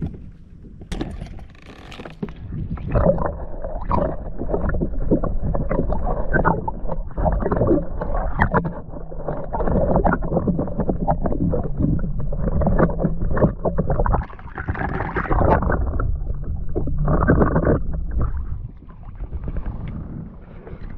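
Water sloshing and splashing beside a kayak hull, heard through a camera held underwater: a muffled, gurgling churn with many small knocks and bumps.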